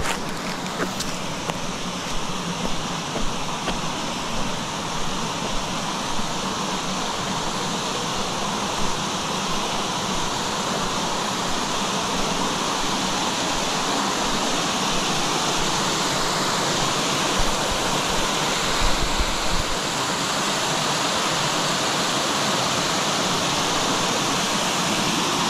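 Small waterfall cascading over shale ledges, a steady rush of water that grows gradually louder, with a few soft knocks and scuffs of footsteps on concrete and rock.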